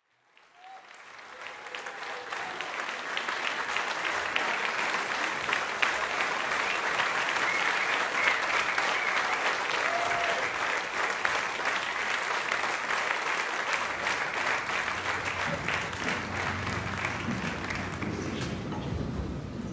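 Audience applauding at the end of a live acoustic blues song, swelling up over the first couple of seconds, then holding steady and easing off near the end.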